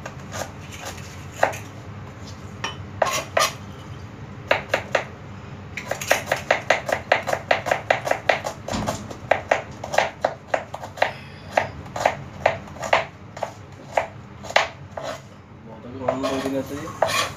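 Kitchen knife chopping red onions on a plastic cutting board: a few scattered knife strikes, then a quick run of chops about three a second in the middle, then scattered strikes again.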